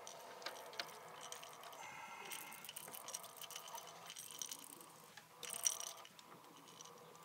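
Faint rattling and clicking of fishing gear being handled in the bottom of a boat, in a few short clusters, the loudest a little past halfway.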